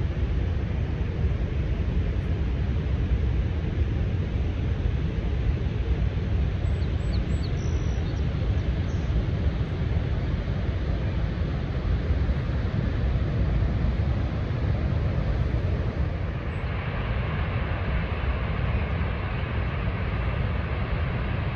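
Steady roar of Niagara Falls' water, a deep constant rumble under a wide hiss. The hiss grows brighter about three-quarters of the way through.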